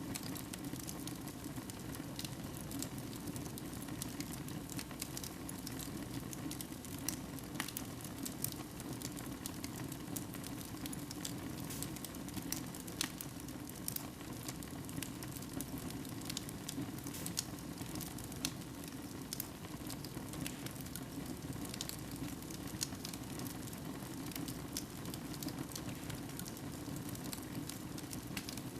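Fire burning in a fireplace: a steady low rush with irregular sharp crackles and pops scattered throughout.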